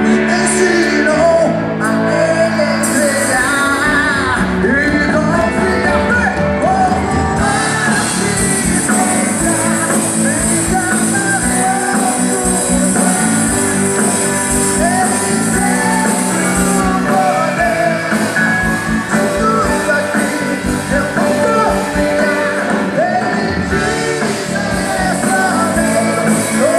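Live rock band playing through a stage sound system: a man singing lead into a microphone over electric guitar and a steady drum beat.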